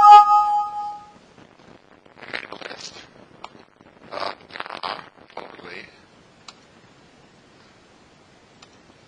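A single bright chime that fades within about a second, followed by several short scratchy, rustling noises.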